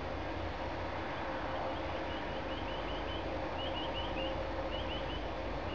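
Steady background hiss and hum, with a small bird chirping over it: short high notes in quick groups, starting about one and a half seconds in.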